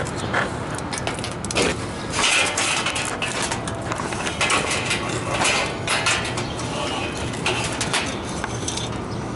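Irregular scraping, knocking and rattling of tools and metal parts as a worn-out condenser fan motor is cut free and worked out of an air-conditioning condenser unit.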